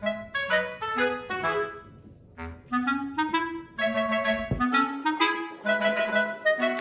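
Background music: a bouncy melody of short, separate pitched notes. It pauses briefly about two seconds in, then picks up again with a rising run of notes.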